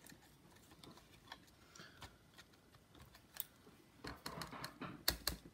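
Faint, scattered clicks and taps of laptop internals being handled as a MacBook Air motherboard is fitted into its case, with a quicker run of sharp clicks near the end.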